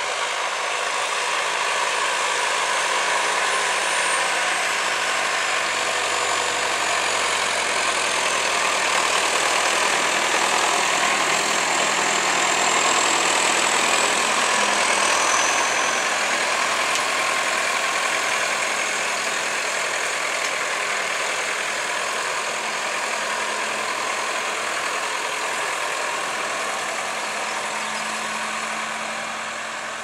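John Deere 6430 Premium tractor's six-cylinder turbo-diesel engine working steadily under load while pulling a four-furrow reversible plough through the soil. It grows a little louder toward the middle as the tractor comes close, then eases off as it passes.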